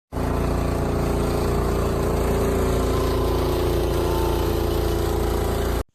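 Small gas engine running steadily at a constant speed, then cut off abruptly.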